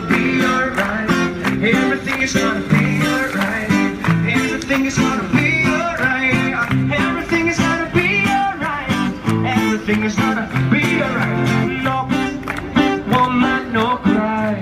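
Acoustic guitar music played with a steady rhythm of strokes.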